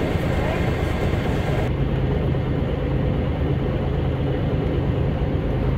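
Boat engine running steadily with a low hum, heard from on board. About two seconds in, the sound abruptly turns duller as its treble drops away.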